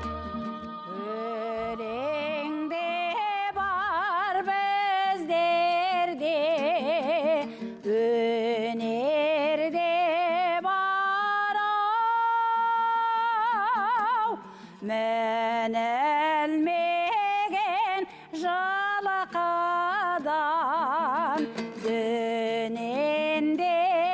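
A female voice sings a Kazakh folk song over a steady instrumental accompaniment. The melody is full of strong vibrato and quick ornamented turns, with brief pauses for breath about two-thirds of the way through.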